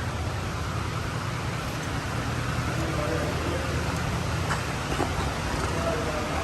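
Steady low drone of a vehicle's engine and road noise heard from inside the cab while driving, with a light click about five seconds in.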